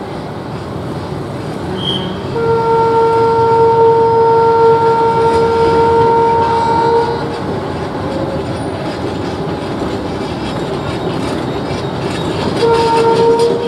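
Narrow-gauge diesel locomotive approaching with its engine running, sounding one long steady horn blast of about five seconds, then a short second blast near the end.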